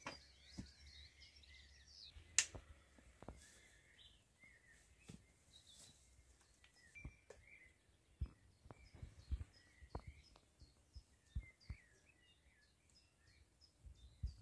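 Faint outdoor birdsong, short chirps repeating throughout, with scattered light clicks and knocks as the wooden loom and cloth are handled; the sharpest click comes about two and a half seconds in.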